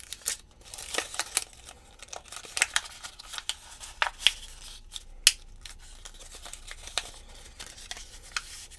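A folded dollar bill being creased and shaped by hand: crisp crackles and snaps of the banknote, many in the first half and sparser later.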